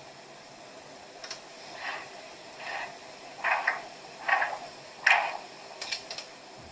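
Echocardiography machine's Doppler audio: rhythmic whooshes about once every 0.8 seconds, in time with the heartbeat. This is the flow signal through an outflow tract being assessed for stenosis and its pressure gradient. A few sharp clicks come near the start and end.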